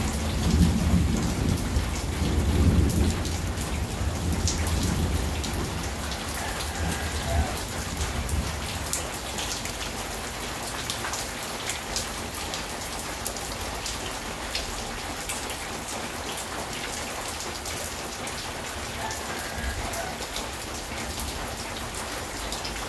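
Steady rain falling, with individual drops ticking sharply over the hiss of the downpour. A low rumble sits under the rain for the first few seconds, then fades.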